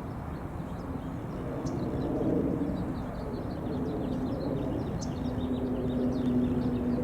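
A steady engine-like hum with a held low tone, slowly growing louder, with many faint, quick high bird chirps above it.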